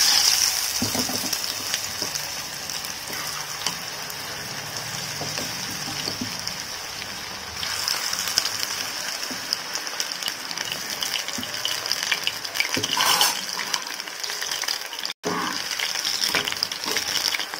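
Battered cauliflower florets deep-frying in hot oil in a kadai: a steady, vigorous sizzle with fine crackling. It breaks off for an instant about fifteen seconds in.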